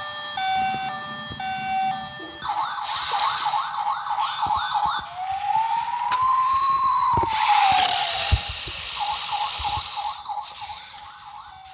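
A toy's electronic siren sounds from a small speaker, cycling through patterns. It starts with on-off beeping tones, then a fast warbling yelp, one slow rising and falling wail, and the fast warble again, fading near the end.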